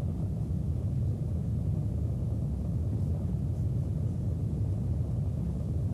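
Steady low rumble of a Delta IV rocket's main engine and two strap-on solid rocket motors firing during ascent, about half a minute after liftoff.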